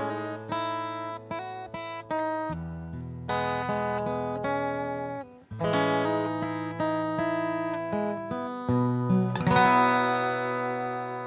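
Solo acoustic guitar picking and strumming chords that ring out, a new chord every second or two, with a brief gap about five seconds in.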